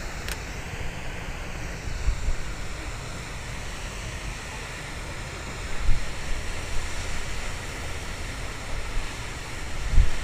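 Wind buffeting the camera microphone: a low rumble under a steady hiss, swelling in gusts about six seconds in and again near the end. A single short click comes right at the start.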